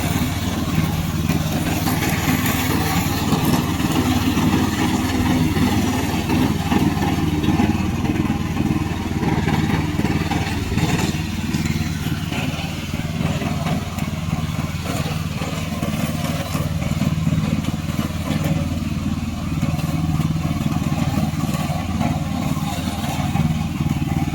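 Tracked remote-control lawn mower's engine running steadily as it mows.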